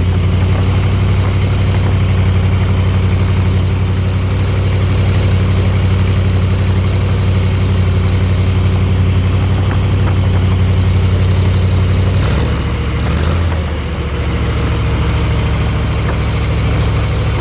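Engine of a 302 air compressor running steadily on its newly fitted fuel pump; about twelve seconds in, its speed drops to a lower, steady note.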